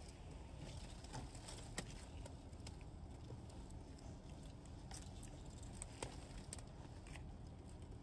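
Faint rustling and scattered light crackles as a bath mat is pushed and tucked into a cat winter shelter among dry fallen leaves, with one sharper click a little under two seconds in.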